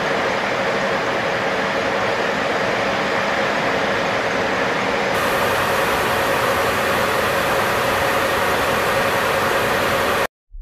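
Steady cockpit noise of a B-52H Stratofortress in flight: its eight jet engines and the rushing air running as one even noise. About five seconds in a brighter hiss joins it, and it cuts off abruptly near the end.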